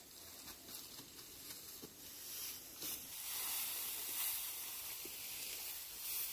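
A rustling hiss with scattered crisp crackles, growing louder about two and a half seconds in.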